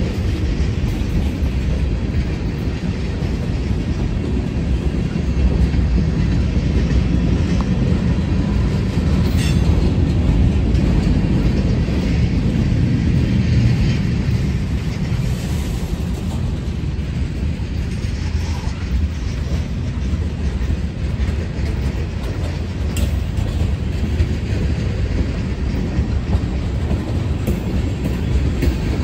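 Norfolk Southern freight train's cars rolling past close by, a steady rumble of wheels on the rails with a few faint clicks.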